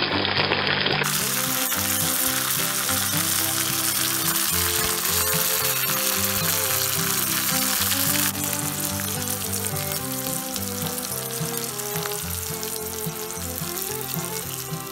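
Sliced shallots, curry leaves and dried red chillies sizzling and spitting in hot oil in a pan, a steady frying hiss that drops a little in level about eight seconds in.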